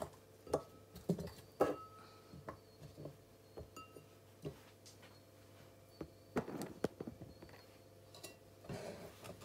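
Scattered soft taps and light clicks of raw potato slices being picked out of a ceramic bowl and laid in the bottom of a nonstick pot, with a cluster of handling sounds about six seconds in and again near the end, over a faint steady hum.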